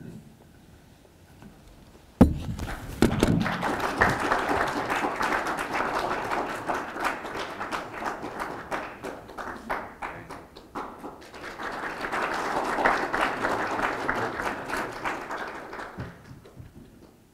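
Audience applauding, easing off briefly midway, then swelling again before fading near the end. A thump about two seconds in is the loudest single sound.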